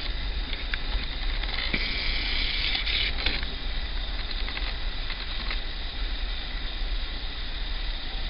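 Class 56 diesel locomotive's Ruston-Paxman V16 engine running with a steady low rumble. A high hiss comes in about two seconds in and cuts off sharply a second and a half later.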